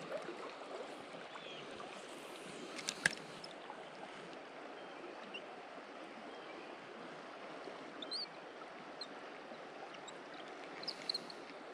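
Steady rush of a shallow creek running over riffles, with one sharp click about three seconds in and a few brief, faint high chirps later on.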